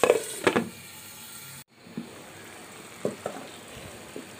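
Two sharp clinks of a glass pot lid against the pan, then okra and shrimp curry simmering: a soft steady bubbling hiss with a few small pops.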